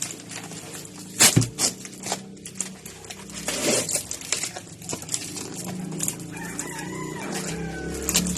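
A rooster crowing, a long gliding call about six seconds in. Before it come sharp clicks and crinkling of cardboard packaging being handled and opened.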